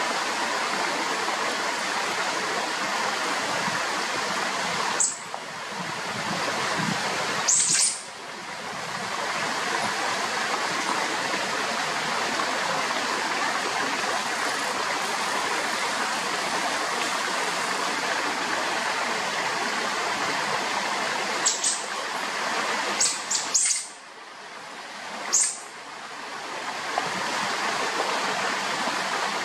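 South American coatis giving short, very high-pitched squeals in a territorial dispute: a couple about 5 and 8 seconds in, then a cluster of four between about 21 and 26 seconds. Under them runs a steady rushing noise.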